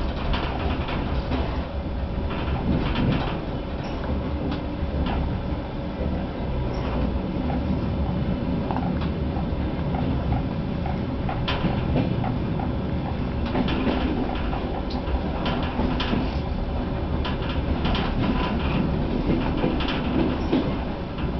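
DR1A diesel multiple unit heard from inside its driving cab while under way: a steady engine and running rumble with a constant hum. Irregular clicks and clacks come from the wheels crossing points and rail joints.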